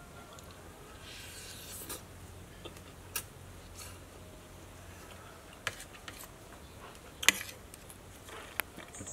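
A metal spoon scraping and clinking against a plate while eating, with a short scrape early on and a few sharp clicks, the loudest about seven seconds in.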